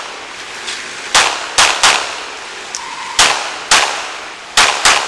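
Glock pistol fired seven times in an uneven string, several shots coming as quick pairs, each with a short echo trailing off.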